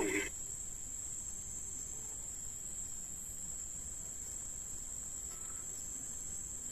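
Crickets trilling steadily, one unbroken high-pitched note.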